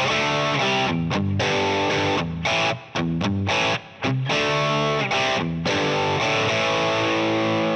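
Electric guitar played through a Fractal Axe-Fx III on its 'Plexi 50W 6CA7' Marshall Plexi amp model at a crunchy, overdriven setting. It plays rhythmic chords cut by short muted gaps, then lets one chord ring from about six seconds in. The tone is bright, and the player finds it a bit too treble-heavy.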